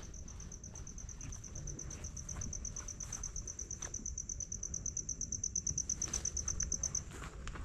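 An insect calling: a high-pitched, rapidly pulsing trill that grows louder and then stops abruptly about seven seconds in.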